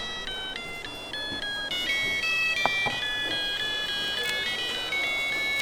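Background music with a bright, plinking melody of short high notes stepping up and down.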